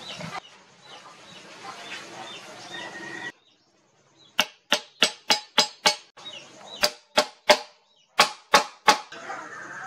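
Steel hammer peening the metal pins of a knife's wooden handle: about twelve sharp strikes in three quick runs, starting about four seconds in. Before them there is low background noise with small chirps, which cuts off to silence.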